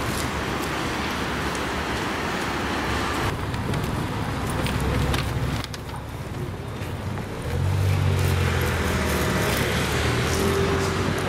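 Road traffic: a steady hiss of cars going by, then from about two-thirds of the way in a louder low engine rumble as a vehicle passes close.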